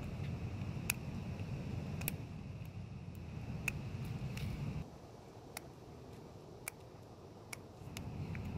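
Faint, sharp little clicks and scrapes, scattered irregularly, as match heads are ground off with a pointed tool into a small hole in asphalt. Under them runs a low background rumble that drops off about halfway through.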